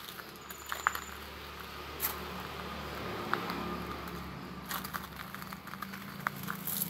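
Light footsteps on a gravel path, with scattered small clicks over a faint steady low hum.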